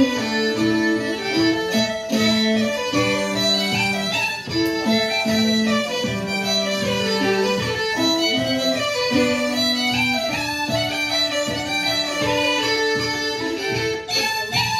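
Irish traditional music played live on two sets of uilleann pipes and a fiddle together, a continuous run of quick melody notes.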